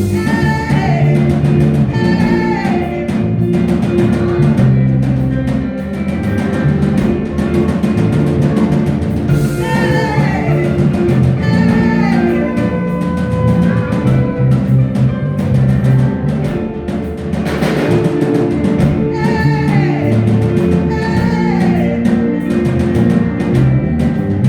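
Loud live praise music: drums and bass keep a driving beat while voices sing short phrases that slide down in pitch, coming back every few seconds.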